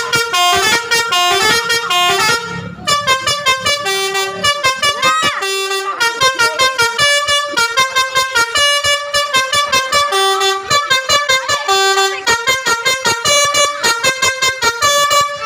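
Basuri 'telolet' multi-tone bus horn playing a melody of short notes at several pitches. After a brief break about three seconds in, it plays a long run of rapidly pulsed notes, several a second.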